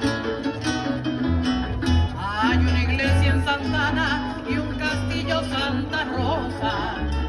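A Spanish-language hymn to the Virgin sung with a wavering voice over guitar accompaniment and a repeating bass line.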